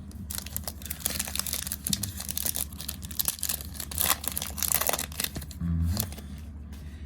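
Plastic wrapping of trading card packs crinkling as it is handled, a dense crackling rustle lasting about five seconds.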